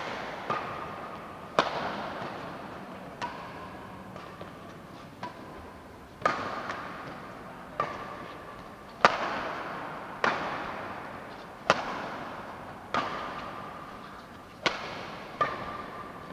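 Badminton racquets striking a shuttlecock back and forth in a rally: a sharp crack every second or so, each ringing on in a long echo.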